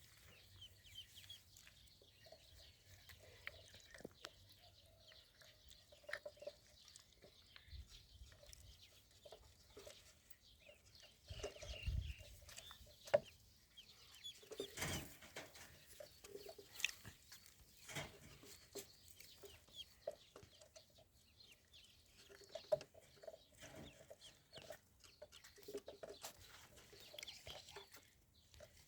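Soft peeping and clucking of ducklings and other fowl, in short scattered calls, with a few sharp knocks and rustles.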